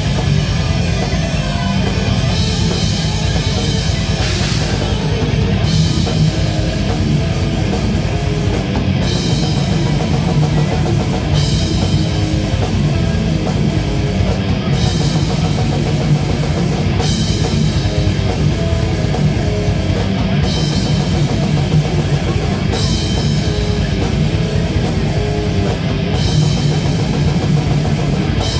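Death metal band playing live: distorted electric guitars, bass guitar and a drum kit with cymbals, loud and dense throughout, the cymbals dropping out briefly every few seconds.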